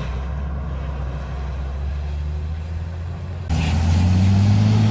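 Heavy vehicle engine running with a steady low hum. About three and a half seconds in, the sound cuts abruptly to a louder engine hum, pitched a little higher and rising slightly.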